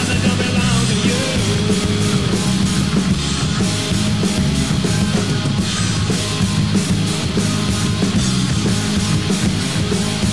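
Loud heavy rock music with guitars, in a fast thrash-metal and punk style, playing without a break.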